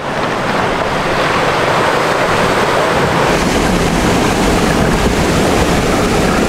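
River water rushing and splashing against a Land Rover Defender 110 as it fords a river: a loud, steady wash of churned water, with wind buffeting the microphone.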